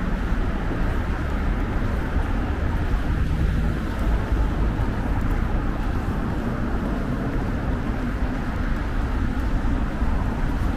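Steady road traffic noise from cars running on a multi-lane road: a continuous rumble of engines and tyres with no single vehicle standing out.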